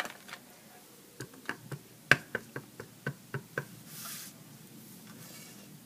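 Clear acrylic stamp block tapped quickly and repeatedly onto a StazOn ink pad to ink the stamp: about a dozen light, sharp taps roughly four a second, one louder than the rest. A short soft swish follows near the end.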